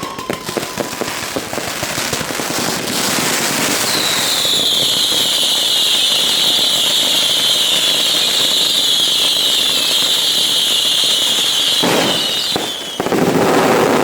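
Daytime fireworks and firecrackers crackling and popping densely. From about four seconds in, a loud high whistle joins, holding for about nine seconds and sinking slightly in pitch, then gives way to a louder burst of noise near the end.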